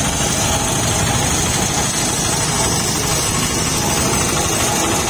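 Small drum road roller's engine running steadily as it compacts freshly laid asphalt, with a constant low rumble.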